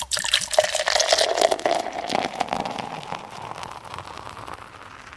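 Beer being poured into a glass and fizzing, a crackling foamy pour whose tone rises slightly as the glass fills, then fading away.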